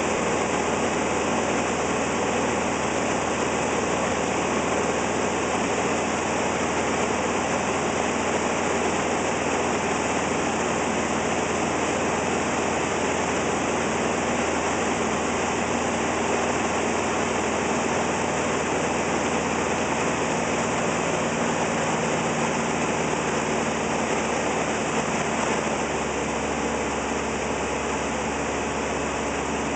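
Steady cockpit drone of a light aircraft's piston engine and propeller with wind noise, heard from inside the cabin on approach. It eases slightly in level near the end.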